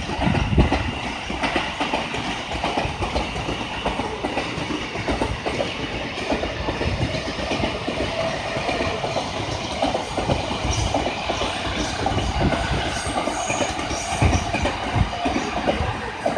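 JR East E233-series electric commuter train running past on the main line below, with a steady rolling rumble and the clack of its wheels over rail joints.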